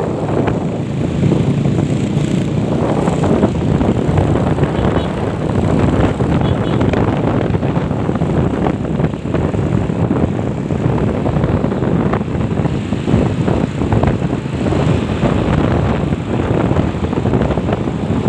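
Steady rush of wind buffeting a phone microphone on a moving motorcycle, mixed with the engine and road noise.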